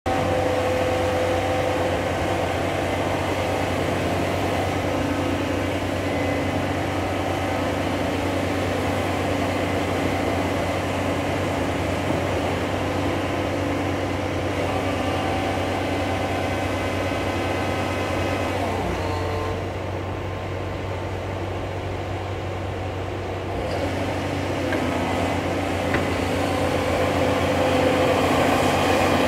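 Caterpillar 336 Next Generation hydraulic excavator's diesel engine running steadily, with a whine from the hydraulics. It eases off for a few seconds past the middle, then picks up again and is loudest near the end as the boom swings up.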